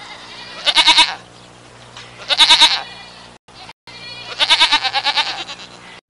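Goat bleating three times, each bleat a quavering call, the last the longest, over a steady low background noise.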